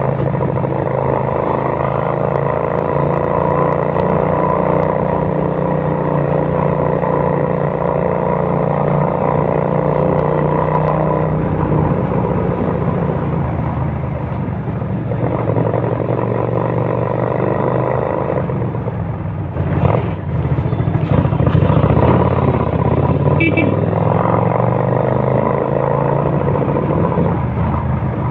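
Kasinski Mirage 250 motorcycle's V-twin engine running with a loud rumble, steady for most of the stretch and briefly louder and rougher about 20 seconds in.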